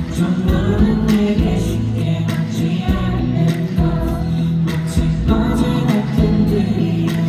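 Pop ballad playing: singing over band accompaniment with a steady beat.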